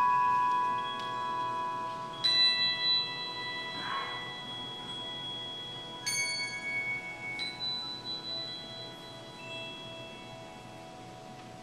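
Handbell choir ringing chords: a few fresh chords are struck, about two seconds in, again about six seconds in and once more soon after, each left to ring and slowly die away.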